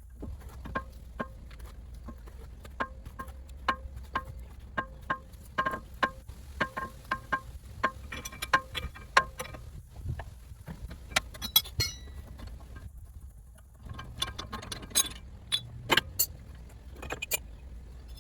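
Metal striking metal: a run of sharp taps, each with a brief ringing note, about two a second, then fewer, louder strikes later on.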